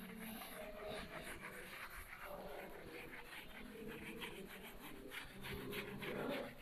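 Whiteboard eraser wiped across a whiteboard in quick back-and-forth strokes: a faint, rapid rubbing.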